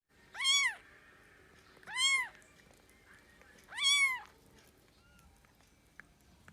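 A cat meowing three times, about every second and a half to two seconds, each call rising and then falling in pitch.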